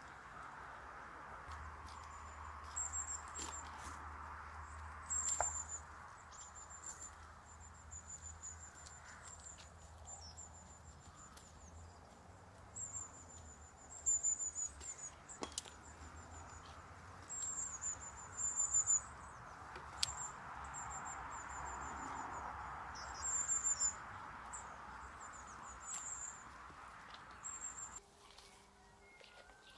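Faint outdoor ambience: small birds giving many short, very high-pitched calls over a steady low hush, with a few sharp clicks. It changes abruptly near the end.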